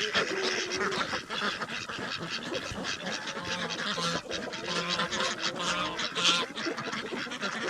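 A flock of farm ducks and other poultry calling and chattering over and over while they eat their feed.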